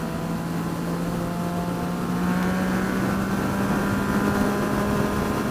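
Yamaha FZ-09's 847 cc inline-three engine running under way, its pitch rising a little about two seconds in and then holding steady.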